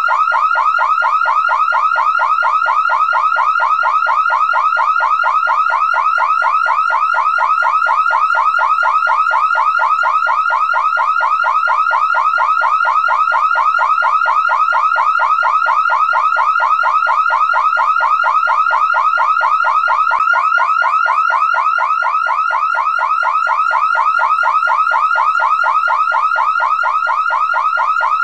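Car alarm siren going off continuously, a loud electronic tone that sweeps in pitch over and over, several times a second, without a break.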